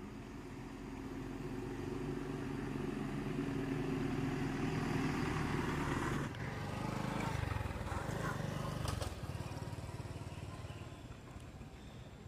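A motor vehicle's engine, most like a motorbike, passing by: it grows louder over the first few seconds, shifts in pitch between about six and nine seconds in, then fades away.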